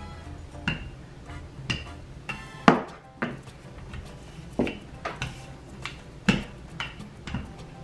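Wooden handled rolling pin knocking and clacking as it is rolled back and forth over a sheet of puff pastry: about nine sharp, irregular knocks, the loudest a little under three seconds in.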